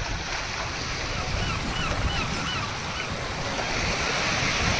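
Sea surf breaking and washing over the shallows, with wind blowing across the microphone.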